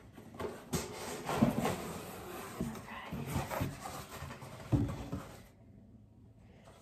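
Cardboard shipping box being opened by hand: its flaps scraping and knocking, with a few sharp knocks and rustling of the paper shred filler inside.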